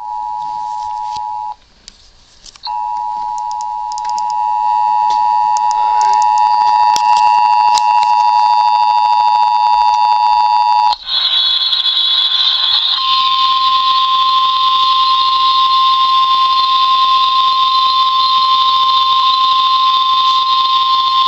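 Emergency Alert System attention signal broadcast over FM radio: a steady, harsh two-note alarm tone that drops out briefly near the start, then holds. About eleven seconds in it gives way to a short burst of noise and then a single steady, slightly higher tone, the weather-radio alert tone that announces a tornado drill test.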